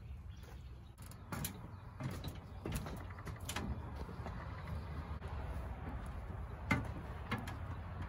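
Footsteps on a travel trailer's fold-out metal entry steps, with a series of sharp knocks and rattles as a man climbs in and out of the camper. The steps have no stabilizer under them, only the corner jacks and tongue jack down.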